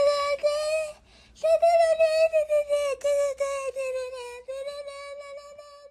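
Dutch shepherd whining: a run of high, steady-pitched whines, one after another, with a short break about a second in.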